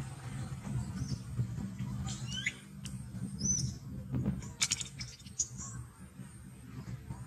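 A few short, high chirping animal calls with quick pitch glides over a low steady rumble, with a brief cluster of sharp clicks a little past the middle.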